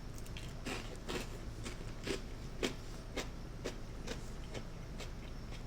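Close-miked chewing of crunchy toasted crostini, a crisp crunch about twice a second.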